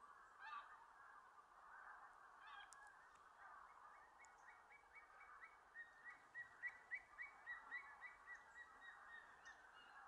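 A distant flock of bean geese honking, many overlapping calls in a faint, steady chorus. From a few seconds in, a bird joins with a regular series of short, higher call notes, about three a second.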